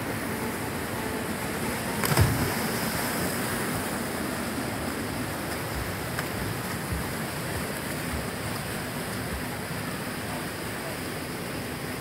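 Steady rush of a small waterfall and rapids pouring over rocks into a river pool. About two seconds in, a loud splash as a person jumps into the pool.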